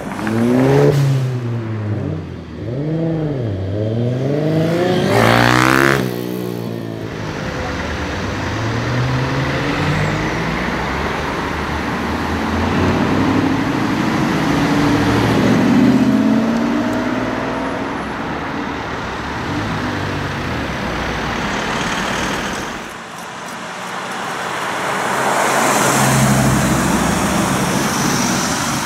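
Audi performance car engines revving and accelerating in a string of short clips. Over the first six seconds the engine is revved up and down several times in quick succession. Then an Audi R8 pulls away with a steadier engine note, and near the end another R8 accelerates away.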